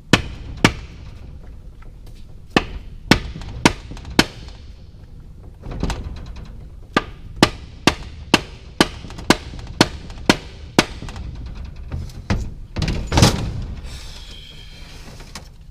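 Mallet striking the input shaft of a Volkswagen manual gearbox to seat it, because the shaft won't turn until it is fully home. Sharp blows come a few at a time at first, then a steady run of about two a second, and a heavier thud near the end.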